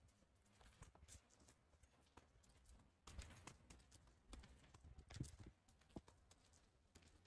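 Near silence, with a few faint, irregular taps of footsteps on pavement, mostly in the second half.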